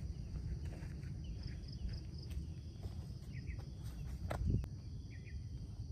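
Outdoor ambience: a steady low rumble with faint scattered chirps, and footsteps on grass with one heavier thump about four and a half seconds in as a person walks up to a hammock.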